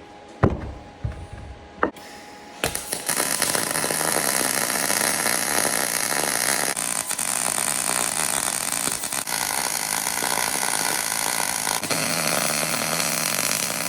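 A few short knocks, then from about three seconds in wire-feed arc welding with an ESAB Fabricator 141: a loud, steady noise from the arc as a weld bead is run.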